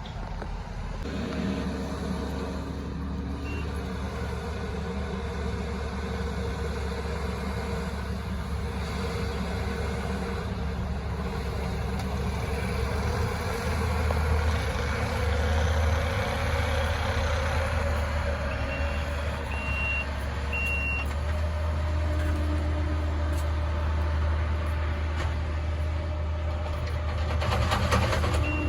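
Heavy machinery engine running steadily and growing louder over the first half, with a backup alarm beeping three times about two-thirds of the way through and starting again at the end.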